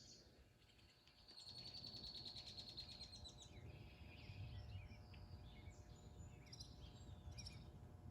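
Near silence with faint birds chirping: a rapid high trill of about ten notes a second lasting nearly two seconds, starting about one and a half seconds in, then scattered high chirps over a low background rumble.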